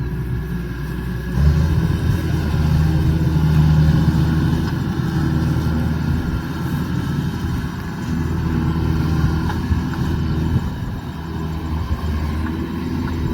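Kubota DC105X rice combine harvester running steadily, its diesel engine and machinery working without a break; the sound grows louder about a second and a half in.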